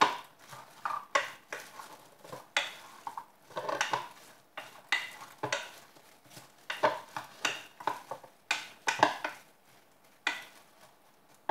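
Wooden spoon tossing a dressed lettuce salad in a bowl: irregular wet rustles and scrapes, roughly one every half-second to second, that stop near the end.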